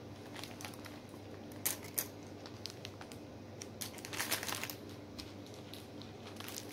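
Small plastic bag of resin cabochons crinkling in the hands as the pieces are put back into it, in short scattered bursts, with two sharp clicks about two seconds in.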